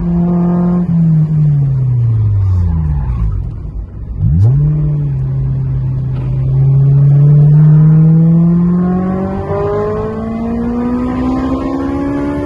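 Honda S2000's 2.0-litre four-cylinder engine running hard on a race track. The engine note falls away over the first few seconds, rises sharply about four seconds in, then climbs steadily, stepping up in pitch near the end.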